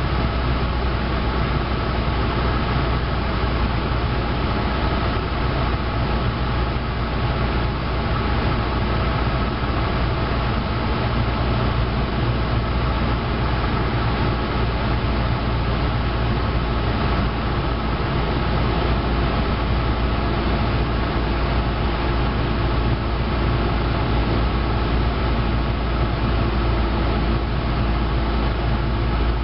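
Cessna 172's piston engine and propeller running at a steady drone in level flight, heard inside the cabin.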